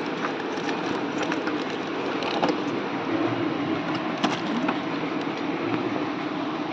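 Steady mechanical running noise with a faint wavering hum and scattered light clicks, one sharper click about four seconds in.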